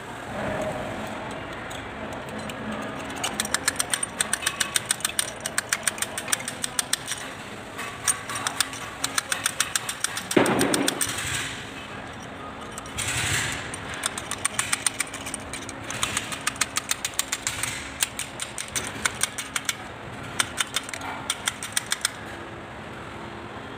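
Runs of quick metal clicks as a tractor's front-axle steering knuckle and hub are worked on by hand with a tool, with one louder metal knock about ten seconds in.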